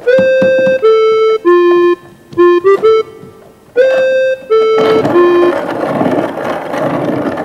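A short keyboard tune of clean single notes, a falling three-note figure played twice with a quick run of notes between. From about five seconds in, a hand-cranked wooden coffee mill grinding beans, a steady grinding noise.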